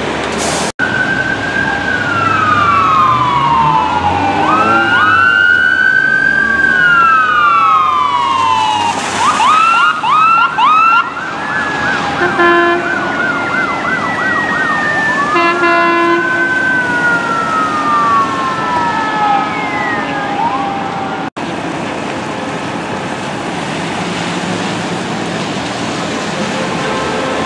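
Emergency-vehicle sirens, the arriving ambulance's among them: overlapping wails that fall and rise, switching to a fast yelp about ten seconds in, with two short horn blasts a few seconds later. After a cut near the end, only a steady hiss of traffic on a wet street remains.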